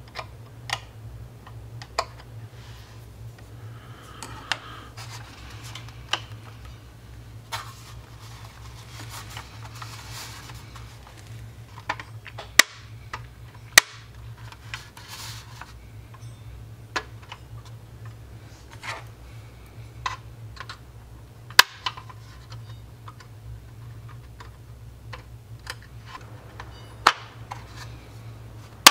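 Sharp plastic clicks and snaps as small styrene parts of Das Werk's 1/72 U9 U-boat kit are pressed into the hull and click into place, scattered irregularly, with a few much louder snaps around the middle and near the end.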